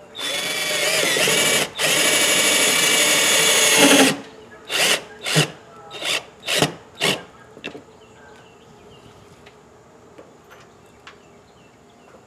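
Power drill driving a mounting screw: one long run of about four seconds with a short break, then five short trigger pulses as the screw is snugged down.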